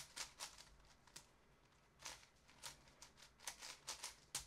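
MoYu Cubic AoFu 7x7 speedcube being turned by hand: faint, swooshy plastic layer turns, coming as short strokes in irregular clusters.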